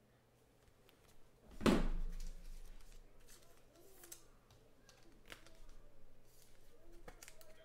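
A single loud knock about a second and a half in, then scattered light clicks and rustles. The sound is a trading card and its plastic sleeve and rigid toploader being handled.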